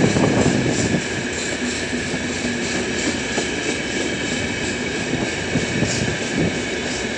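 Freight train of open-top gondola wagons rolling past close by: a steady rumble of wheels on rail, with faint regular clicking and a louder surge in the first second.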